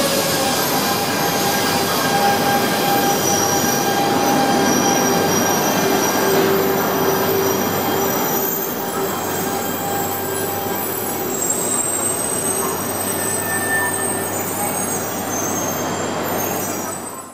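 Shinkansen bullet train pulling slowly into the platform, with its wheels squealing in several steady whining tones over the rolling rumble. A falling whine fades out at the very start, and the sound cuts off suddenly at the end.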